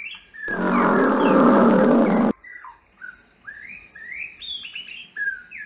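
A big cat's roar played as a sound clip: one noisy roar of nearly two seconds that stops abruptly.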